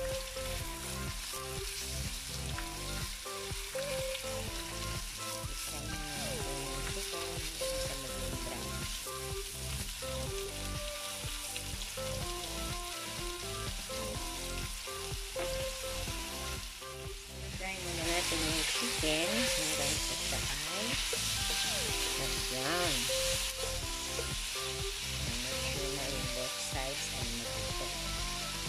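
Marinated chicken breast pieces sizzling as they fry in a hot wok, with the scrape of a wooden spatula turning them. The sizzle grows louder about two-thirds of the way through.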